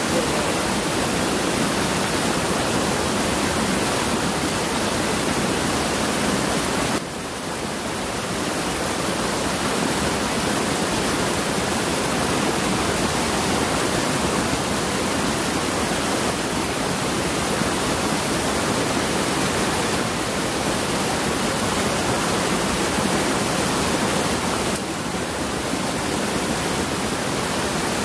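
Rushing water of a small cascade pouring over rocks in a stream: a loud, steady rush that drops a little for a moment about seven seconds in and again near the end.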